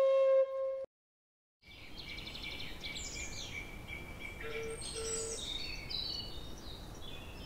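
A flute tune ends on a held note just under a second in. After a moment of silence, many birds chirp and sing over a faint outdoor background.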